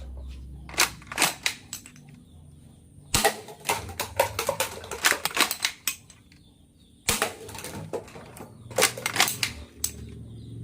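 Plastic mechanism of a toy AWM bolt-action sniper rifle being worked: a series of sharp clicks and snaps, the loudest about three seconds in and again about seven seconds in.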